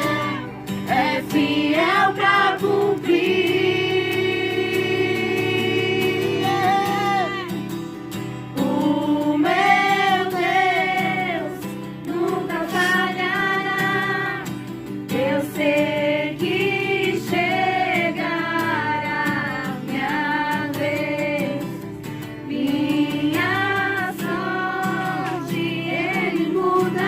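A group of voices singing a Portuguese-language Christian worship song together, with long held notes.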